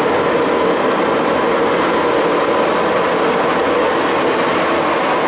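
Samstar 40 x 160 engine lathe running under power, spindle turning at about 600 RPM with the feed shaft engaged: a steady machine drone with a faint high whine.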